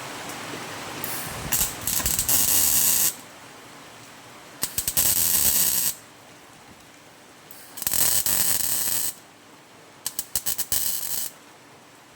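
Electric welder laying four short tack welds on a steel repair panel, each burst lasting one to two seconds with a spiky start. Rain on the roof is a steady hiss underneath, loudest in the first second.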